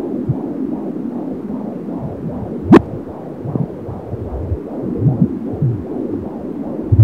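Fetal heartbeat at 28 weeks through a handheld AngelSounds fetal doppler: a fast, even whooshing pulse. There is one sharp loud knock about three seconds in and a few low thumps around five seconds.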